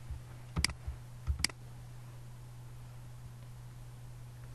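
Two sharp clicks from computer input about a second in and a second apart, over a steady low hum.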